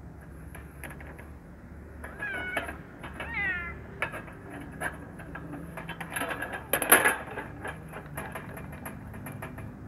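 A kitten meowing twice, short calls that fall in pitch, about two and three seconds in. Then a run of small clicks from cats eating soft food out of a bowl, with a sharp knock near seven seconds.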